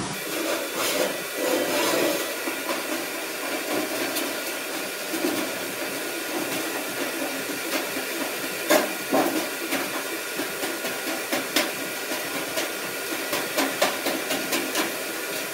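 Hand tin snips cutting a round hole in a galvanized sheet-metal duct for a branch takeoff: a continuous run of small crisp metal snips and scraping, with one sharper clack about nine seconds in.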